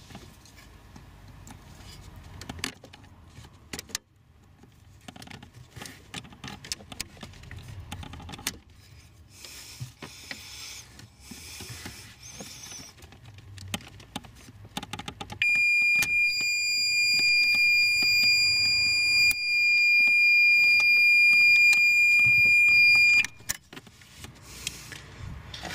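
Small clicks and rustles of wiring plugs and plastic latches being handled at a car's GM5 central-locking module. About fifteen seconds in, a loud, steady, high-pitched electronic beep starts and runs for about eight seconds before cutting off suddenly.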